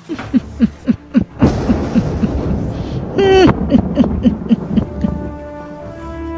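A cackling evil witch's laugh: a run of short, falling 'ha' notes, about three a second, over a rushing noise, with one high shriek about three seconds in. Music with long held notes takes over near the end.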